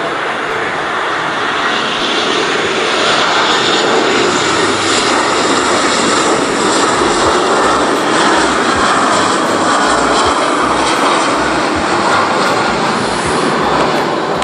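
Twin GE CF34 turbofan engines of an Embraer 190-based VC-2 jet on landing approach: a loud, steady jet rumble and hiss that grows louder over the first few seconds as the aircraft passes close.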